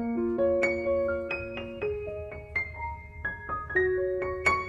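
Background piano music playing a melody of separate held notes.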